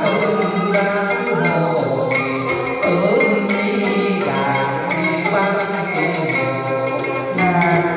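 Instrumental music of a Vietnamese song's interlude, with no singing.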